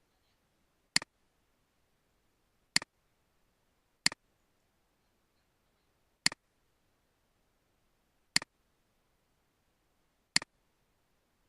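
Six sharp clicks, spaced about one and a half to two seconds apart, each a quick pair of a loud click followed at once by a softer one.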